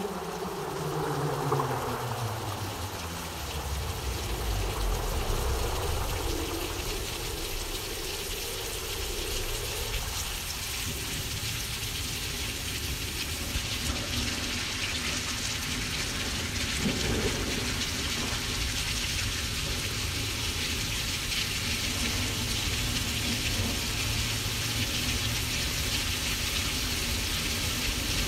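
Simulated thunderstorm: a steady rain-like hiss over a low, continuous thunder rumble. A pitched tone glides downward over the first few seconds, and the hiss grows brighter about halfway through.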